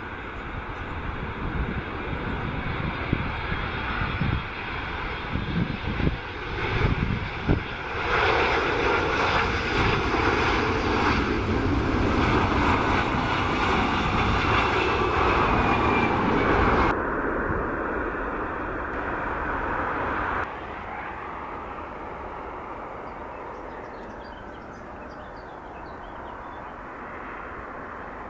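Jet airliner engines heard close to the runway: a steady loud roar with a high whine that falls slightly in pitch as the aircraft passes. The sound changes abruptly a few times as one aircraft's sound gives way to another's, and is softer over the last few seconds. A few low thumps come a few seconds in.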